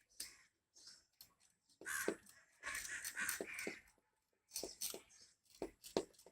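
Plastic Rubik's cube pieces clicking and scraping as they are pressed back into place by hand, in short irregular bursts with a longer scrape about two to four seconds in.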